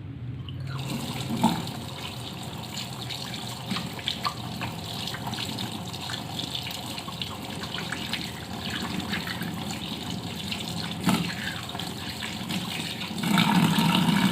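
Water running from a tap into a sink, with a few knocks and splashes, starting about a second in and growing louder near the end.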